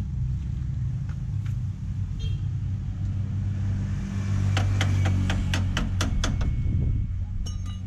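A motor vehicle engine running steadily at idle. About halfway through, a quick run of sharp knocks, roughly four a second, lasts a couple of seconds, and a few more come near the end.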